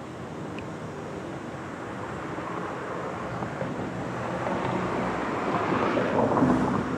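A vehicle driving past, its noise growing steadily louder to a peak near the end.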